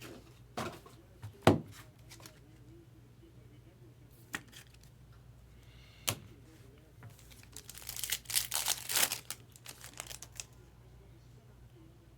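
A few sharp taps and knocks as cards are handled, the loudest about a second and a half in. Then, about eight seconds in, a trading-card pack's wrapper is torn open and crinkled for two or three seconds.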